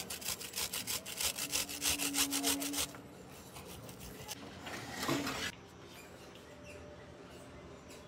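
Cheese rubbed fast against a flat metal hand grater: a quick run of even scraping strokes that stops about three seconds in, followed by one short rustle about two seconds later.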